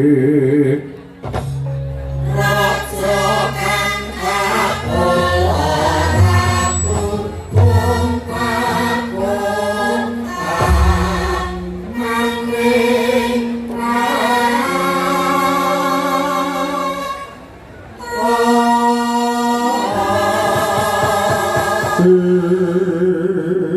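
Javanese gamelan music with several voices singing together. Wavering held sung notes lie over steady ringing instrument tones and occasional deep low strokes, with a brief lull about three-quarters of the way through.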